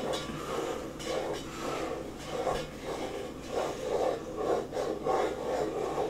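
Wooden spoon stirring and scraping the bottom of a pot of cooking toffee syrup, in steady strokes about two a second.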